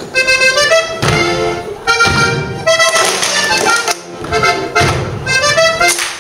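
Accordion playing a lively traditional Alpine Schuhplattler dance tune with a steady beat, its chords changing about once a second.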